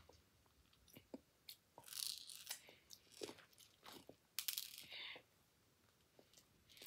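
Faint crunching and chewing of Nerds, the small hard candies, with scattered crackles and clicks; louder crackly bursts come about two seconds in and again near five seconds.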